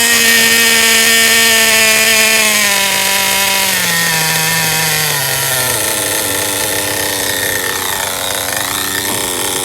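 Redcat Volcano S30's small two-stroke nitro glow engine running fast, then its revs stepping down over a few seconds to a lower idle as the throttle trim is turned back down, running in the first break-in tank.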